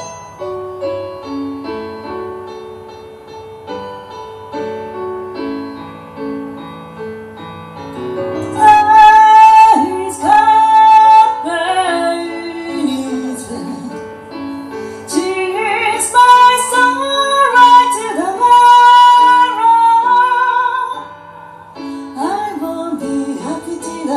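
A woman singing to her own keyboard accompaniment, a piano sound from a Roland JUNO-DS synthesizer. The keyboard plays alone for about the first eight seconds, then her voice comes in, louder than the keyboard. The voice breaks off briefly near the end and comes back.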